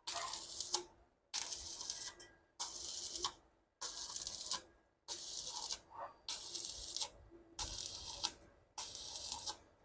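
Stick-welding arc crackling and hissing in about eight short bursts, each under a second and cut off sharply, roughly one every 1.2 seconds with silence between.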